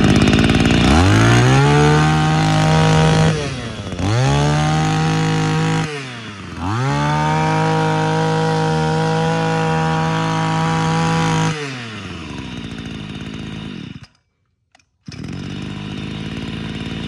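Robin LB232 23cc two-stroke brush cutter engine revved to high speed three times, each rev climbing quickly and then held, dropping back to idle between. The engine sound cuts off about fourteen seconds in, and a steady idle is heard again a second later.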